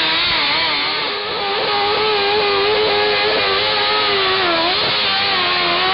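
Modified garden tractor engine running hard at high revs while pulling a weighted sled across dirt, its pitch wavering and sagging briefly near the end under load before picking back up.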